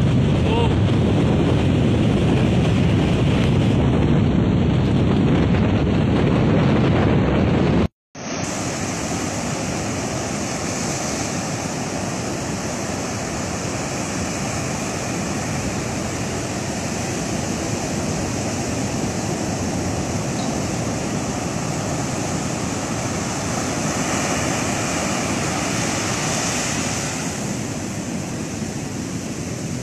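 Rough storm surf rushing and breaking, with strong wind buffeting the microphone, from heavy seas whipped up ahead of Cyclone Mocha. The sound drops out briefly about eight seconds in. After that come big waves crashing over rocks as an even, steady wash of noise.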